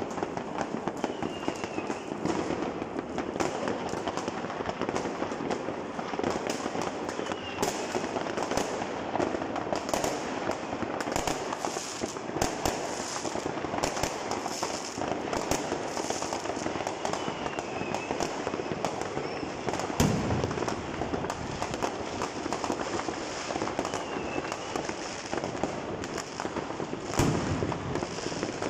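Many fireworks going off at once: a dense, continuous crackling and popping of firecrackers and aerial shells. Two louder bangs stand out, one about two-thirds of the way through and one near the end.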